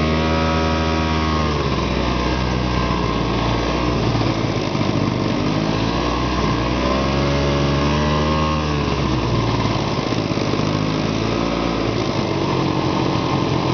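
Arctic Cat Panther snowmobile engine running while riding. The revs are high at first and drop after about a second and a half, then climb again about six seconds in and fall back around nine seconds.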